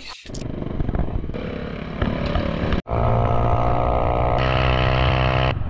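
Small motorcycle engine running steadily as the bike rides along a road. The sound breaks off abruptly and resumes a few seconds in, and the engine note shifts near the end.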